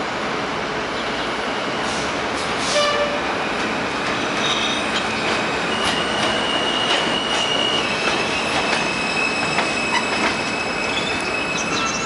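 R160A-1 subway train pulling into an elevated station, the cars rumbling on the tracks. From about four seconds in it gives a high-pitched, sustained squeal as it slows to a stop.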